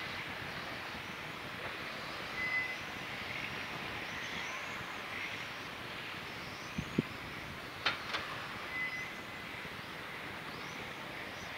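Electric RC touring cars racing, their brushless motors whining up and down in pitch as they accelerate and brake, over a steady hiss. Two short high beeps, and a few sharp clicks and thumps about seven to eight seconds in.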